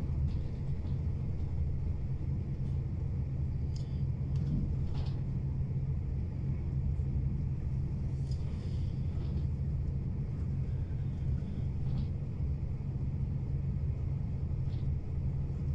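Passenger train running at speed, heard from inside the carriage: a steady low rumble with a few faint clicks over it.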